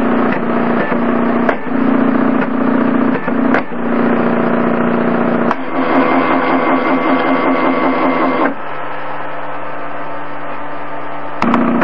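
Stepper motors of a homemade CNC laser plotter whining and buzzing at steady pitches as they drive the laser head, with sharp clicks every second or so in the first half. The whine changes abruptly about halfway through, then drops to a quieter, steadier hum, and rises again near the end.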